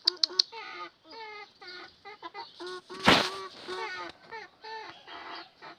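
Chickens clucking, a steady series of short pitched calls, with one short, loud burst of noise about three seconds in. A run of fast, even clicks fills the first half second.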